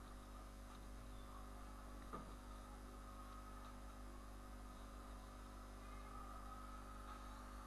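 Near silence: a steady low electrical hum from the recording setup, with one faint click about two seconds in.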